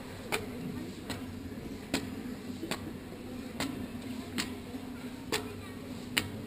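Footsteps climbing a stairway, one sharp step about every 0.8 seconds in a steady rhythm.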